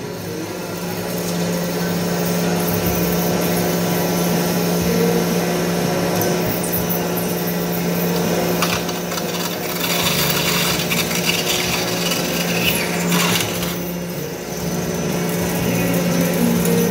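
TM-26120G centre lathe turning a bevel on the end of a steel hollow bar: a steady machine hum under the hiss of the tool shearing off a long steel chip, brighter and harsher from about nine to thirteen seconds in.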